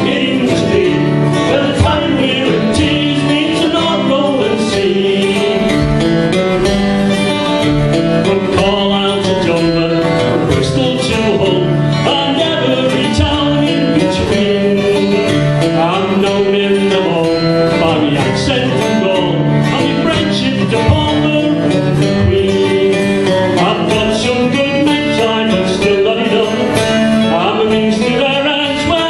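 Two acoustic guitars played together in a live country-bluegrass song, with singing at times.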